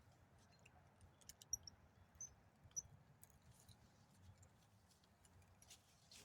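Near silence: faint outdoor ambience with a few soft clicks and three short high chirps in the first half.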